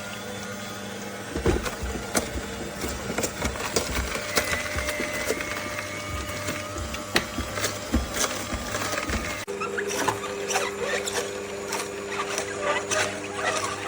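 A cold-press slow juicer running: a steady motor hum with irregular clicks and knocks as it works. The hum changes pitch suddenly about two-thirds of the way through.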